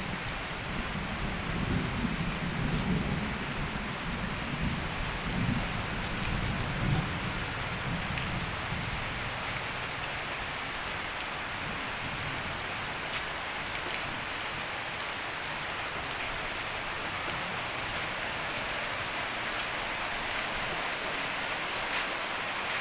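Heavy rain pouring steadily onto pavement and foliage, a dense even hiss. A low rumble swells under it through the first several seconds, then fades, leaving only the rain.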